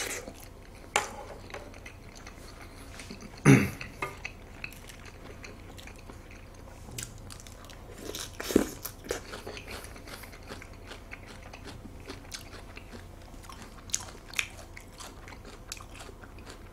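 Close-miked chewing of a mouthful of raw seafood: wet mouth clicks and soft crunching, with a few louder short mouth sounds about a second in, at three and a half seconds, and around eight and a half seconds.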